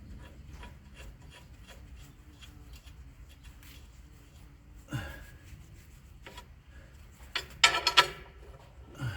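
Workshop hand work: rubbing and scraping with many light clicks, a knock about five seconds in, and a louder burst of scraping clatter near the end.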